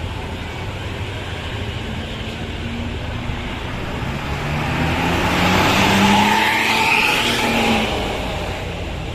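A bus driving past, its engine and tyre noise growing louder to a peak about six seconds in and then fading away.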